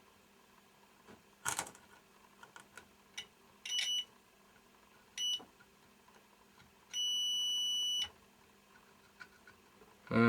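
Multimeter continuity tester beeping as its probes are touched to a circuit-board trace: two short beeps, then one steady beep held for about a second, the sign that the points tested are connected. A sharp tap of the probes comes shortly before the first beep.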